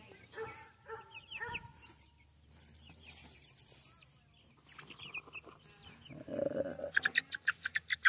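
Young chickens peeping and chirping softly, with a quicker run of peeps near the end.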